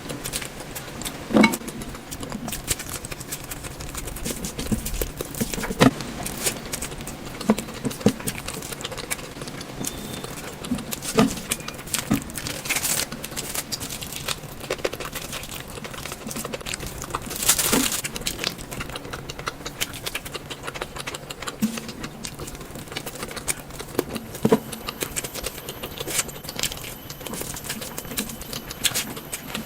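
Close-miked eating sounds: chewing with scattered sharp mouth clicks and smacks. A louder, longer noisy burst comes a little past halfway.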